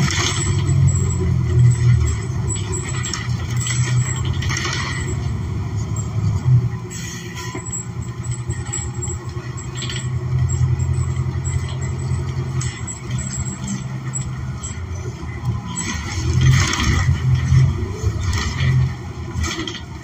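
Interior sound of a New Flyer XN40 city bus under way: its Cummins Westport ISL G natural-gas engine and drivetrain give a steady low drone, with scattered rattles and clicks from the body.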